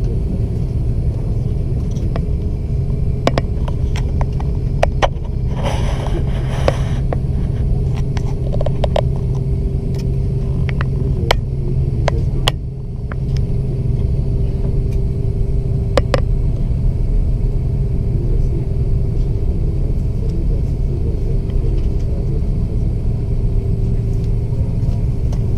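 Cabin noise inside an Airbus A330 with engines running: a steady low rumble and hum with a faint steady tone above it, broken by scattered sharp clicks and knocks and a brief hiss about six seconds in.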